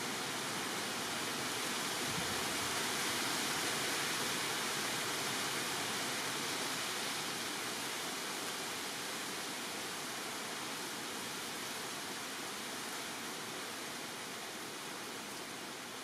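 Steady, even rushing hiss with no distinct calls standing out. It swells slightly over the first few seconds, then slowly fades.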